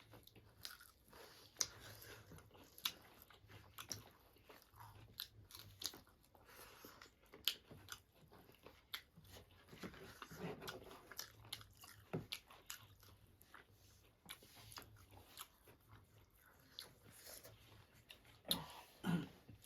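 Close-up eating sounds: food being bitten and chewed, with irregular sharp crunches and mouth clicks.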